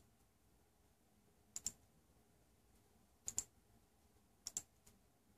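Computer mouse button clicked three times, each a quick pair of clicks, roughly a second and a half apart, with one faint extra click near the end.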